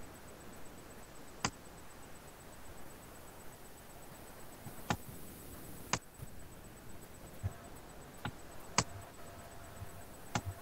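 Computer mouse clicking: about six single, sharp, faint clicks at irregular intervals a second or more apart, over a low hiss.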